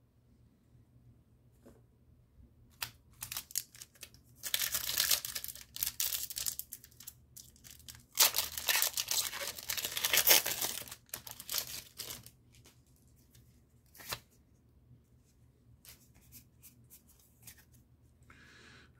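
Foil Pokémon TCG booster pack being torn open and crinkled by hand: light crinkles, then two long stretches of tearing foil about four and eight seconds in, then scattered crinkles and a single click.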